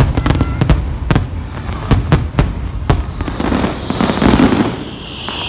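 Fireworks exploding in a rapid run of overlapping bangs and crackles, then a noisy swell about four seconds in before the bangs die away near the end.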